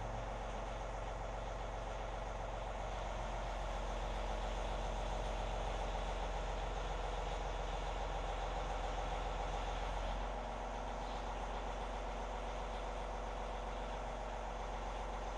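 John Deere compact tractor's diesel engine running steadily while the front loader raises and tilts the bucket carrying clamp-on pallet forks. The engine gets louder from about four seconds in and drops back a little after ten seconds.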